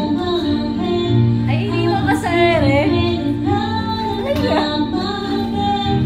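A woman singing into a microphone over instrumental accompaniment, holding a long wavering note about two seconds in.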